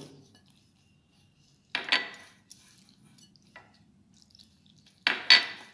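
Glass bowls clinking and scraping while water is poured from a small glass bowl into dry besan and rice flour and mixed by hand. There are two short clattering bursts about three seconds apart, the second louder, with a small click after the first.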